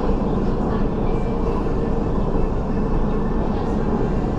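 Steady running noise heard inside the passenger car of an MTR West Rail Line TML C-train travelling at speed between stations.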